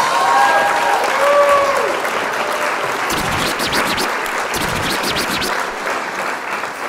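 A crowd applauding, with a few gliding, whistle-like tones over the clapping in the first two seconds.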